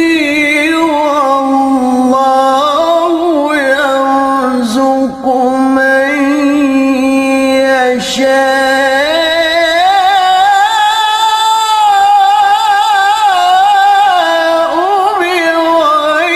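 A male qari reciting the Qur'an in melodic mujawwad style: one long ornamented phrase with wavering trills and long held notes, going higher around the middle.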